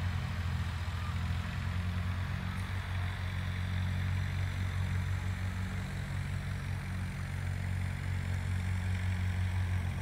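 A steady, low mechanical drone, like a motor running at constant speed, with a faint hiss above it.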